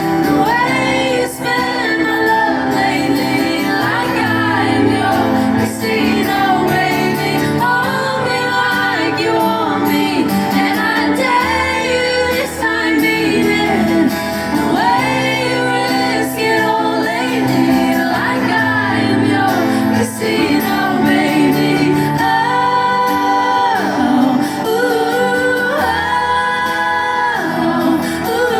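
Live rock band playing a song: a singer's lead vocal over guitar and held bass notes, continuing without a break.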